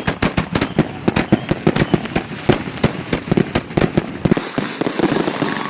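Consumer fireworks going off in a rapid run of sharp cracks, several a second, thinning to a lighter crackle near the end.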